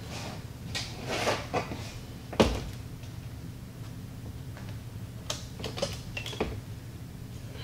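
A diamond painting canvas on its backing board being worked into a brushed-silver picture frame: rustling scrapes and light knocks as the edges are pressed down into the frame. There is one sharp knock about two and a half seconds in, and a few quick clicks near the end.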